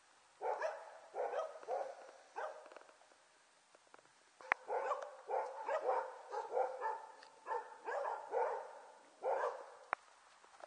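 Border Collie puppy barking in a rapid string of short, high-pitched yaps, with a brief lull about three seconds in. A single sharp click about four and a half seconds in.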